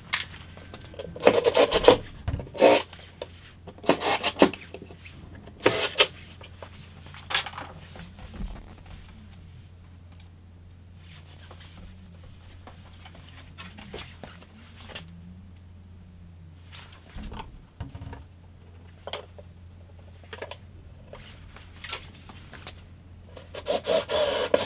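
Cordless drill driving screws through pine battens into the wall in short bursts: about five in the first several seconds and a longer one near the end. A low steady hum and a few light knocks fill the gaps between.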